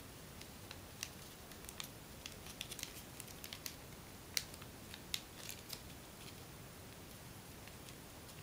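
Faint crinkles and small ticks of folded paper being pressed and pushed in between the fingers, a scattering of them over the first six seconds with two sharper clicks about four and five seconds in, then only a faint steady hiss.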